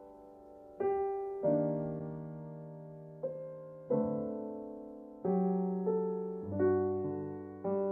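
Solo piano playing a slow piece: single notes and chords struck about once a second, each left to ring and fade.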